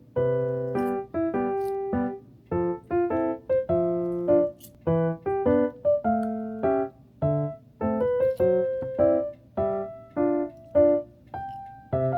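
Background music: a piano melody played in short decaying notes and chords at an easy pace.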